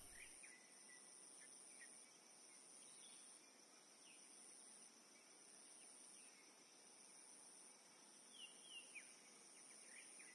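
Faint outdoor ambience of a shade-grown coffee farm: insects keep up a steady high-pitched drone, one of them breaking off briefly every second or so, while birds give scattered short, falling chirps, a few together near the end.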